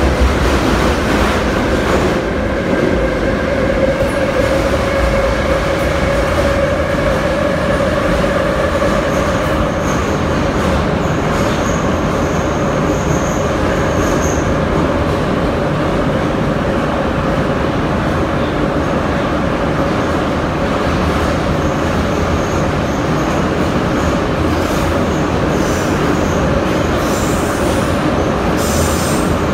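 Loud, steady running noise inside an 81-717/714 'Nomernoy' metro car moving through the tunnel: wheels on rail with a motor whine that rises slightly in pitch in the first few seconds. A thin high squeal joins for a few seconds around the middle.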